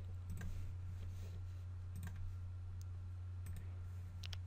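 A few faint computer mouse clicks, spaced out, with two in quick succession near the end, over a steady low hum.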